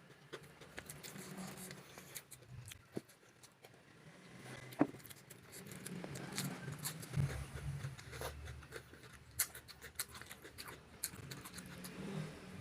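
A person chewing close to the microphone: wet mouth sounds with many short crisp clicks and crunches from eating raw vegetables and rice. One sharper click comes just before the middle.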